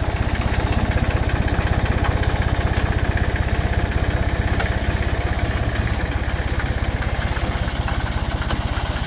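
Compact four-wheel-drive tractor's diesel engine running steadily under load with a fast, even low throb, as it pulls a trenching implement cutting through the soil.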